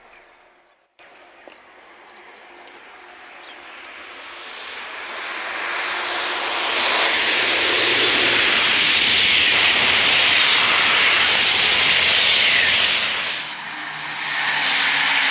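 Thalys high-speed train passing: a rushing noise of wheels and air that builds for several seconds, stays loud, then falls away, with the next train's noise starting to rise near the end.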